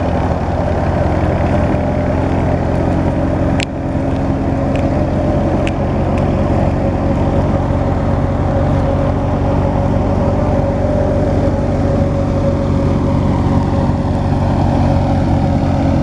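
A Massey Ferguson 240 tractor's diesel engine running steadily under load, driving a Super Kissan wheat thresher, a continuous even drone with the thresher's hum. A single sharp click breaks it briefly a few seconds in.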